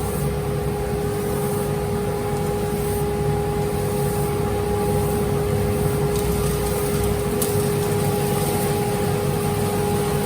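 A machine running steadily, a constant hum at a fixed pitch with a low rumble beneath it.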